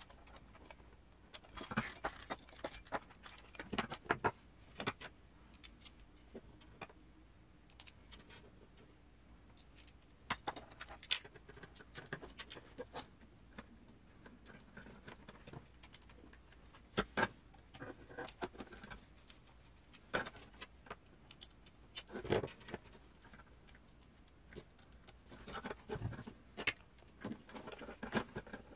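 Small metal screws, nuts and the metal chassis parts of a GMADE Sawback RC crawler kit clinking and clicking against hand drivers as they are fastened together: light, irregular clicks with a few sharper clacks scattered throughout.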